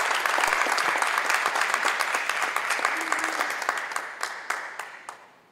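Audience applauding, thinning out over the last two seconds to a few scattered claps and then stopping.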